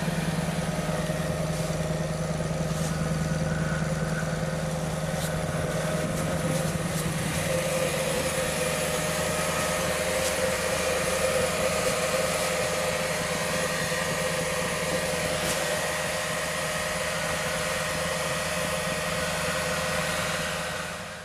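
Land Rover Discovery's 4.2 V8 with a straight exhaust running steadily at low revs. The sound cuts off suddenly at the very end.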